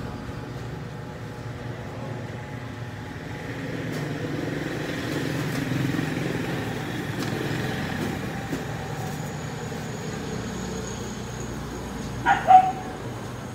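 Steady road traffic rumbling outside, swelling as a vehicle passes in the middle. Near the end, a short loud sharp sound rises above it.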